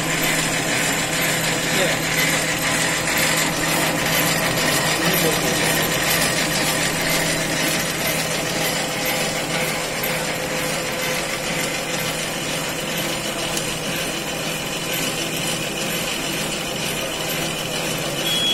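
Digital numbering and perforating machine (VDP15) running steadily, its feed and numbering mechanism clicking evenly over a constant motor hum as forms pass through.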